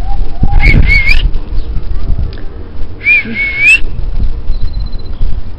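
Two short, wavering high whistles, the second a little longer and rising at its end, over a steady low rumble.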